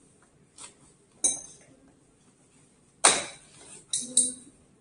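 Metal parts of an airbag vest's gas-cylinder trigger unit being handled, giving a few sharp metallic clinks and knocks: one about a second in and a louder one about three seconds in.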